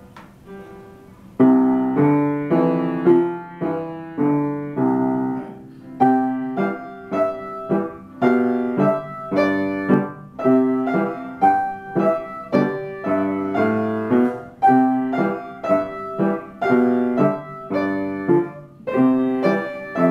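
Upright piano played four hands: a child plays a simple beginner piece while the teacher adds a part in the upper register. It is soft for about the first second and a half, then goes on louder in steady, even notes.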